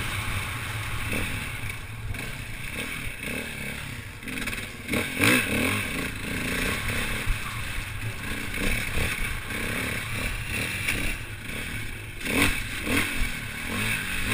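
KTM 450 EXC enduro motorcycle's four-stroke single-cylinder engine, ridden hard, its pitch rising and falling over and over as the throttle is opened and closed, with clattering from the bike over rough ground.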